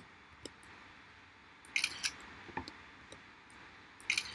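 macOS screenshot camera-shutter sound, twice: a short two-part click about two seconds in and again near the end.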